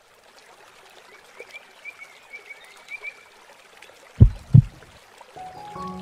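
Soft, water-like hiss with short chirps repeating about twice a second, like a nature ambience, then two deep, loud thumps in quick succession about four seconds in; music with held notes begins near the end.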